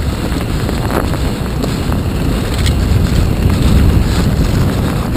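Wind rushing over the handlebar camera's microphone and a mountain bike's tyres rolling over a dirt and leaf-litter trail at speed, with a few sharp clacks from the bike.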